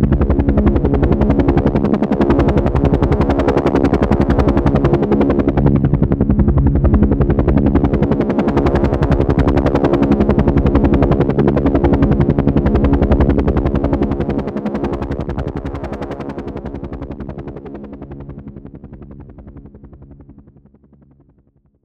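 Helicopter passing overhead: rotor blades beating rapidly over a steady engine tone, loud for the first dozen seconds, then fading away over the last eight seconds to silence.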